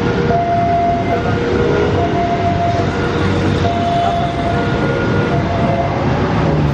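KA 283 Kahuripan passenger train rolling past, its wheels running loudly and steadily over the rails, with short steady tones coming and going over the rumble.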